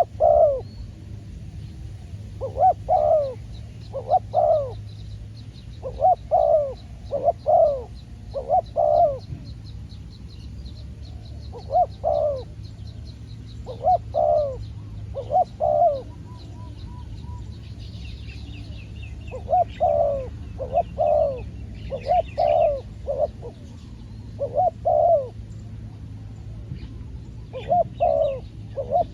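Spotted doves cooing: short phrases of two or three mellow coos repeated every second or two, as a decoy dove and wild doves call. Small birds chirp faintly and high-pitched in the background.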